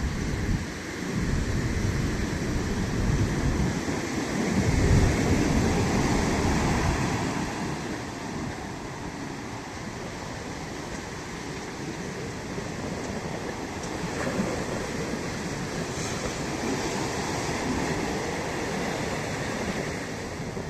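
Ocean surf washing onto a beach, a steady rushing hiss with a heavier low surge about four to seven seconds in that then eases to a calmer wash, with wind buffeting the microphone.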